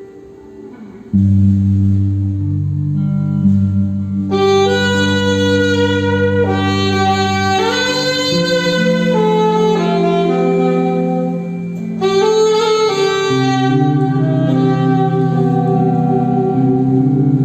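A band playing an instrumental passage. After a soft first second, sustained low notes come in, and a melody line enters about four seconds in and carries on over them.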